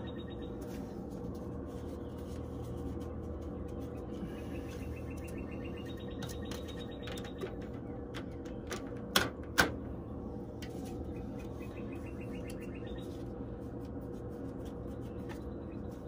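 Two sharp clicks about half a second apart, a little past the middle, as the plastic louvers of a dryer vent hood snap into their pivot holes.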